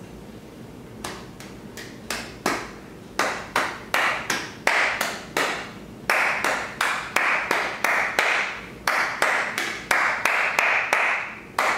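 One person clapping hands in a steady repeating rhythm, starting about a second in: two claps, two claps, one clap, two claps, the syllables of "apple, honey, cheese, popcorn" clapped without speaking them.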